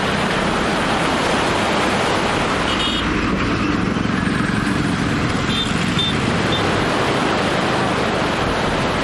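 Steady rush of a river in flood, an even, unbroken noise. Short high toots, like a vehicle horn, sound briefly about three seconds in and three times around six seconds.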